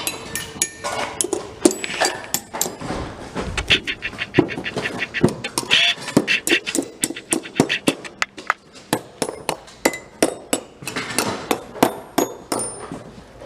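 Small metal screw-in hooks clinking and rattling against each other as they are handled and sorted. The sound is an irregular run of many sharp clicks with brief metallic rings.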